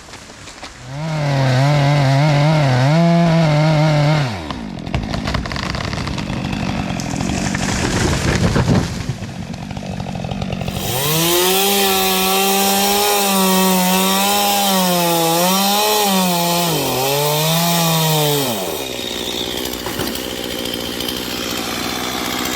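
Chainsaw running at high revs and cutting in two spells of several seconds each, its pitch wavering under load and falling away at the end of each cut.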